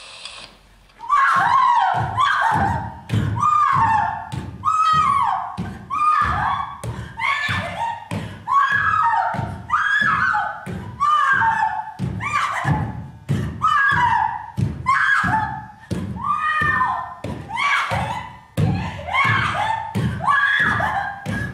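Rhythmic music: a steady thumping beat under short, repeated voice-like notes that slide down in pitch.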